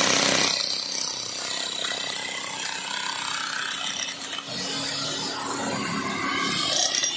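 Stanley STHM10K 10 kg, 1600 W electric demolition breaker running under load, its point chisel hammering rapidly and continuously into stony, rubble-filled ground.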